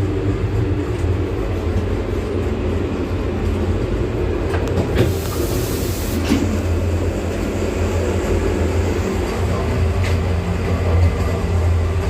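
Vande Bharat electric trainset running at speed, heard from inside the coach: a steady low rumble of wheels and running gear on the track. A brief hiss comes in about five seconds in.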